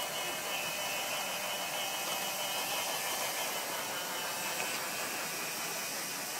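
Large-scale garden-railway model train running along its track: a steady hiss with a faint high whine from the electric locomotive and its wheels on the rails.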